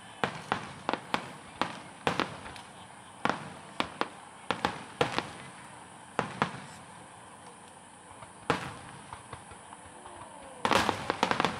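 Aerial fireworks shells bursting in a string of sharp, irregular bangs. The bangs thin out after the middle, then come in a rapid volley near the end.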